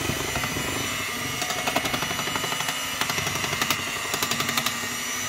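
Electric hand mixer running steadily as its beaters whip chocolate pancake batter in a glass bowl. From about a second and a half in, a rattle of rapid clicks joins it as the beaters knock against the glass.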